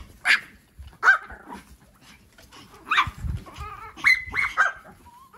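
A dog barking, several short barks at uneven intervals, with a quick run of barks about four seconds in.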